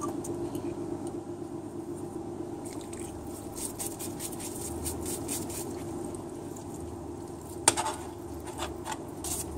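Parts washer pump running with a steady hum while solvent streams from its nozzle over a transmission solenoid and splashes onto the steel tray, flushing fine metal debris out of the solenoid. There is a sharp knock about three-quarters of the way through.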